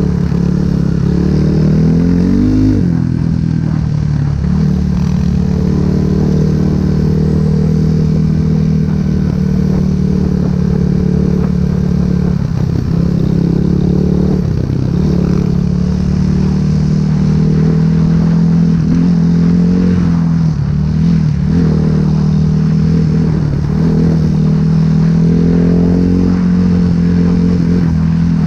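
Dirt bike engine running at a steady cruising throttle, heard from the rider's own bike. The revs rise briefly and drop back about three seconds in, and there are a few short dips in the engine note later on.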